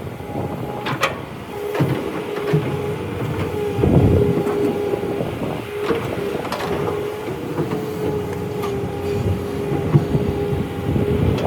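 Excavator at work: a steady mechanical whine that comes and goes, with repeated clanks and knocks throughout.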